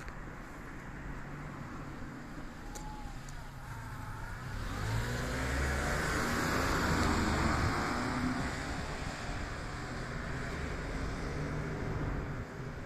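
A vehicle passes close by: its engine and road noise build to a peak about six to eight seconds in, then fade.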